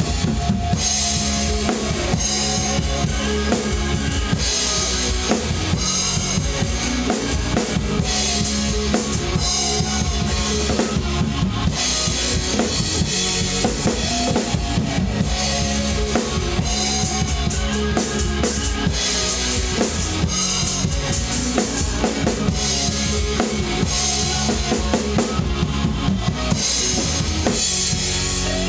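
Acoustic drum kit played live along to a rock song recording: kick, snare and cymbal strikes over the song's guitars and bass.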